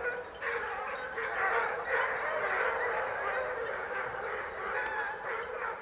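A pack of basset bleu de Gascogne hounds giving tongue together as they run a scent line, many voices baying and overlapping without a break.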